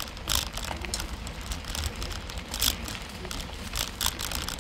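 Mountain bike ridden fast along a dirt woodland trail: a steady low rumble of tyres and air over the microphone, with several sharp clicks and rattles from the bike as it goes over bumps.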